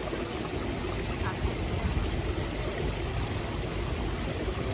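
Steady rushing background noise with faint voices.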